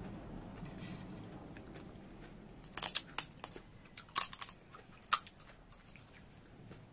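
A crisp, hollow pani puri shell cracking as fingers break a hole in it: a cluster of sharp crackles about three seconds in, another a second later, and one last crack about five seconds in. Before that there is faint chewing close to the microphone.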